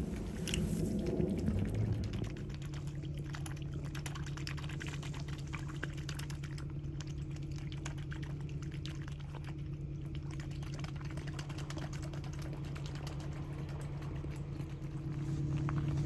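Light splashing and dripping of a swan dabbling at the water's surface, then a steady low hum from about two seconds in, with faint ticks and lapping water over it.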